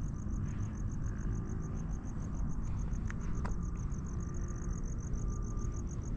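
Crickets chirping in rapid, evenly spaced pulses over a low rumble, with a couple of brief sharp sounds about three seconds in.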